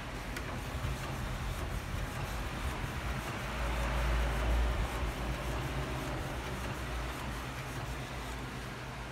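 Epson L1300 inkjet printer running as it prints, its print head carriage sliding back and forth. The sound grows louder, with a low rumble, for a second or two about four seconds in.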